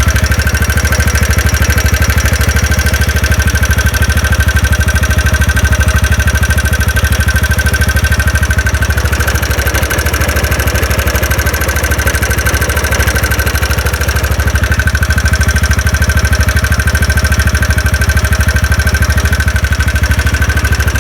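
TVS Ntorq 125's single-cylinder engine idling steadily with a fast, even tik-tik knock. The noise is still there with the one-way starter clutch removed, which the owner takes for a worn connecting rod.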